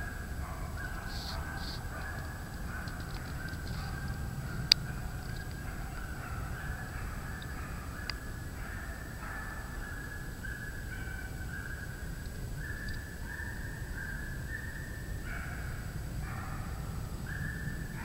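A pack of deer-hunting dogs baying, many short calls overlapping one another without a break, with one sharp click about five seconds in.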